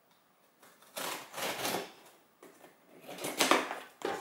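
Scissors slicing through the packing tape on a cardboard shipping box, in two scratchy passes: one about a second in and a louder one about three seconds in.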